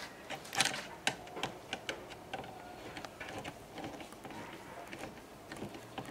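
Irregular light clicks and taps of small metal parts being handled and fitted by hand on a workbench, with a sharper click about half a second in.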